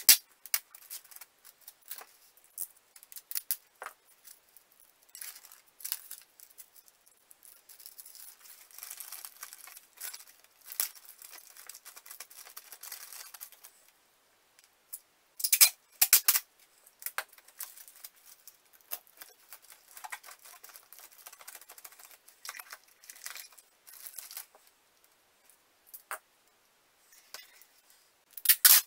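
Brown packing tape being pulled off the roll in short, sharp rips: right at the start, twice about halfway through, and again near the end. Between the rips, the plastic bag and the tape crinkle and rustle as they are smoothed down by hand.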